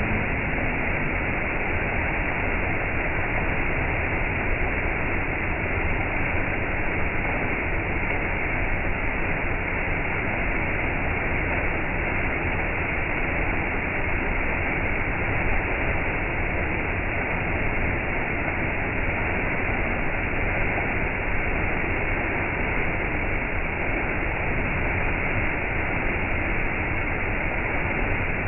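Waterfall: water falling and rushing in a steady, unbroken roar of noise, even in level throughout.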